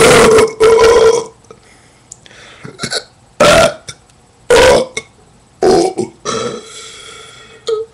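A person burping repeatedly: a string of loud, separate belches, each under a second long, with short pauses between them.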